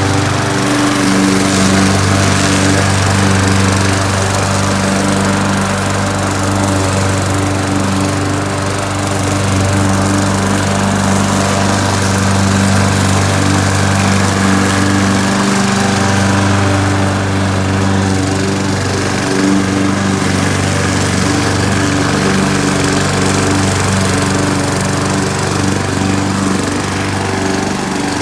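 Craftsman walk-behind gas lawn mower running steadily while cutting grass, with a brief dip in its note a couple of times.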